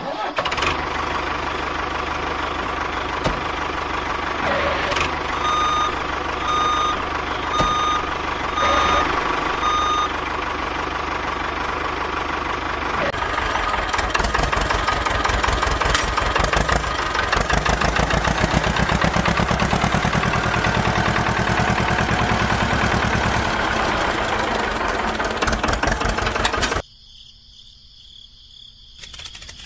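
A battery-powered toy vehicle's electric motor and gears run steadily, with a string of five electronic beeps about once a second early in the run. The motor noise becomes a faster pulsing whir partway through, then cuts off suddenly near the end.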